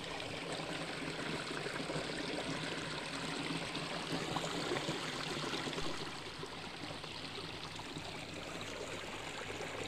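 Small rocky stream flowing, a steady rush of water that swells slightly in the middle.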